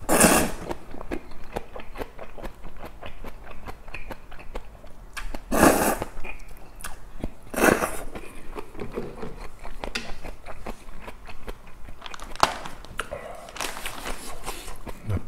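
A person eating kong-guksu (noodles in cold soybean-milk broth) and kimchi at close range: the noodles are slurped in about four short, loud bursts, near the start, twice around the middle and near the end, with wet chewing and crunching of napa-cabbage kimchi between them.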